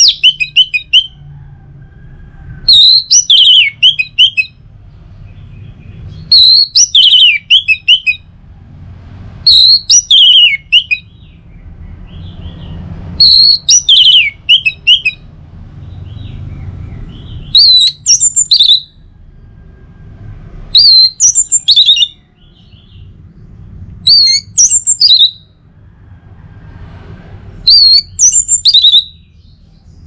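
Orange-headed thrush singing its full song: a string of short phrases of quick, high, rising and falling whistled notes, each about a second long, repeated roughly every three to four seconds.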